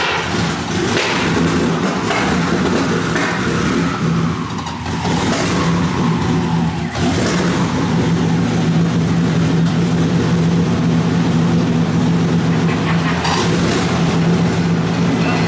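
Twin-turbocharged engine of a 2023 Ford F-150 running on its first start-up after a TH400 swap. A higher whine falls in pitch over the first several seconds, then the engine settles into a steady idle.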